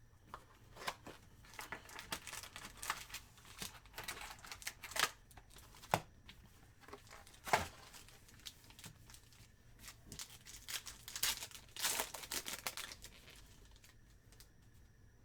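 Plastic wrapping on a box of 2019 Panini Chronicles trading cards and its packs being torn open and crinkled by hand, in irregular bursts, with two sharp snaps about six and seven and a half seconds in.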